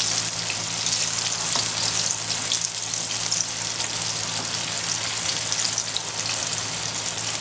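Egg-coated tofu pieces deep-frying in a wok of oil over moderate heat: a steady sizzle dotted with small crackles as a wooden spatula turns them. A low steady hum runs underneath.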